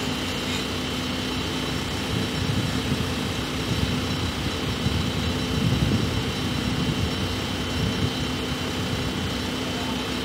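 A crane's engine running steadily with a low rumble and a constant hum while it holds a steel rafter in its slings.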